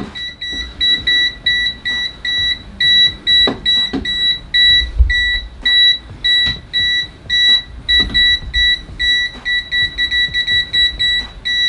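JIMI JM-G3401 multimeter's buzzer beeping in non-contact voltage mode: a quick, uneven string of short, high beeps that signals it is sensing voltage at a wall switch.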